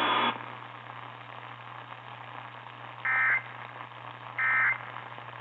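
Weather radio static and a low hum, then two short warbling data bursts about 1.3 s apart. These are the SAME end-of-message tones that close a NOAA Weather Radio severe thunderstorm warning. A louder stretch of noise cuts off just after the start.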